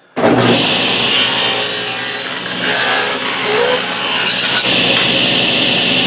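Table saw switched on and cutting lengthwise along a short strip of wood fed against the fence. The motor and blade start suddenly and then run steadily through the cut.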